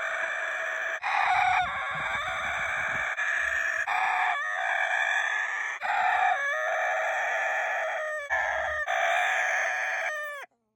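Rooster crowing over and over, long drawn-out crows following one another almost without a break. The last crow falls away and stops abruptly near the end.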